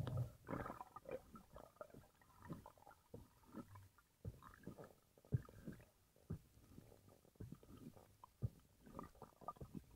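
Muffled underwater sound picked up by a camera in the water: faint, irregular knocks and clicks with low rumbling, the kind made by water moving around the camera and by the diver's own movements.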